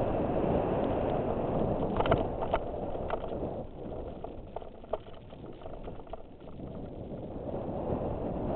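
Wind rushing over a helmet-mounted GoPro and mountain-bike tyres rumbling on a dirt-and-gravel fire road on a descent. There are a few sharp clicks and rattles from the bike about two seconds in and again near five seconds. The rush eases off in the middle and builds again near the end.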